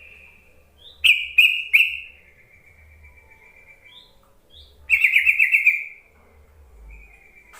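Yellow-vented bulbul (trucukan) calling: three sharp, loud chirps about a second in, then a loud, rapid warbling phrase about five seconds in, with softer drawn-out notes and short rising whistles between.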